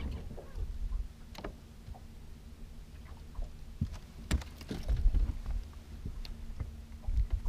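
Low rumble of water and wind around a fishing boat with a steady low hum, and a few sharp clicks and knocks on the boat, the loudest about four to five seconds in.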